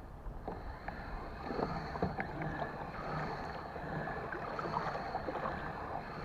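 Water lapping and splashing against a kayak hull, with wind rumbling on the microphone and a faint steady high tone in the background.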